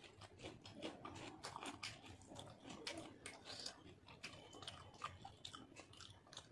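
Faint close-up chewing of a mouthful of rice and fish curry, with many small, irregular wet mouth clicks and smacks.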